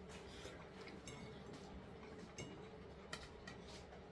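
Faint, scattered ticks of cutlery against plates during a meal, over low room tone.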